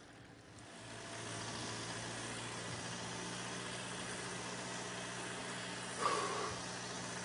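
Steady low engine hum over a hiss, coming up about a second in; a brief voice-like sound about six seconds in.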